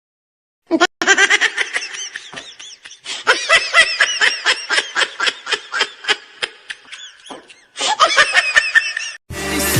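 Laughter sound effect: high-pitched laughing in rapid, repeated bursts, starting after a moment of silence, with a brief break near the end.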